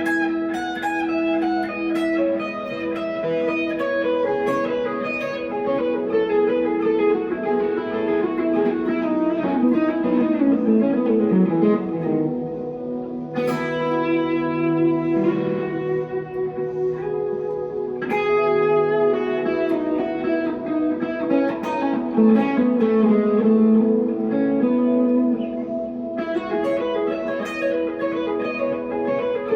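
A 1963 Fender Telecaster played clean through a Glaswerks Zingaro 100-watt amp with a Celestion G12-65 speaker: solo electric guitar playing a slow melody of held notes that ring into one another, with a falling run of notes near the middle.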